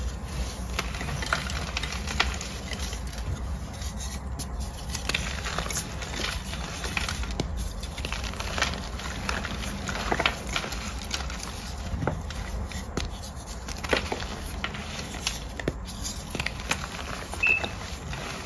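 Blocks of hot pink gym chalk crushed and crumbled between the fingers: irregular dry crunches and crackles as the chalk breaks into powder, with some rubbing and scraping.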